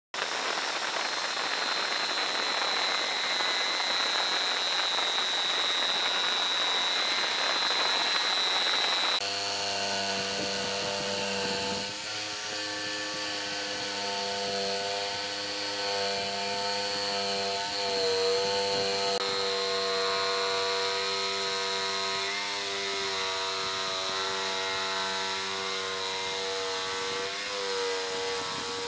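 Makita 4327 jigsaw running and cutting a circle through a pine board. About nine seconds in, the sound changes suddenly from a hissing cut with a high whine to a steadier humming whose pitch wavers slightly.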